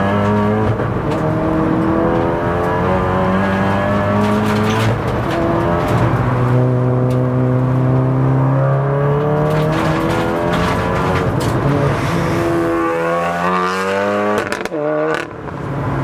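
Big-turbo MK7 Golf R's turbocharged 2.0-litre four-cylinder engine pulling hard through the gears, heard from inside the cabin: the engine note climbs and then steps down at each gear change. Near the end the throttle is briefly lifted before the engine pulls again.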